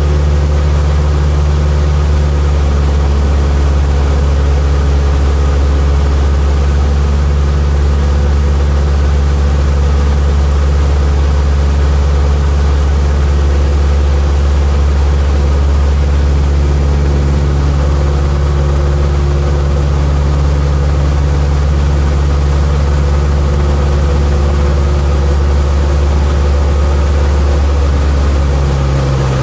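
Light aircraft piston engine and propeller running steadily, a loud constant drone; the engine note changes about a second before the end.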